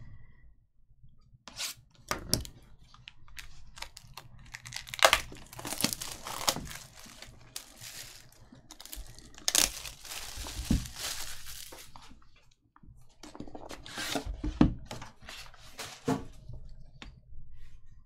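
Plastic shrink wrap being slit, torn and crinkled off a sealed trading card box, in irregular bursts of tearing and rustling, the longest crinkling stretch about halfway through.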